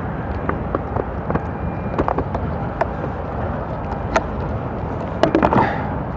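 A kayak being paddled: light knocks and clicks of the paddle and gear against the hull over a steady rushing noise, with a quick cluster of knocks about five seconds in.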